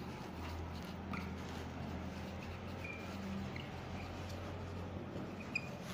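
Marker pen writing on a whiteboard: faint scratching strokes with short, high squeaks here and there as the letters are drawn, over a low steady room hum.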